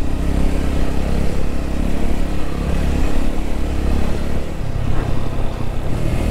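A TVS Apache RTR 200's single-cylinder engine running steadily while the bike is ridden at low speed, with wind rushing over the onboard microphone. About four and a half seconds in, the engine note changes.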